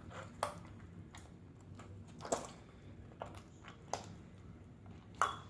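Crunchy borax-activated slime being squeezed and worked by hand, giving about eight soft, scattered squishes and clicks.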